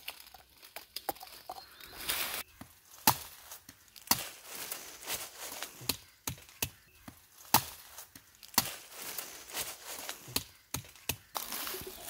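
Chopping with a blade: sharp, irregular strokes about one or two a second, the loudest about three seconds in and again about seven and a half seconds in.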